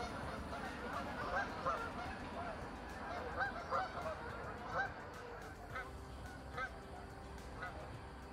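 A flock of Canada geese honking on the water. Many honks overlap through the first half, then a few single honks come spaced about a second apart.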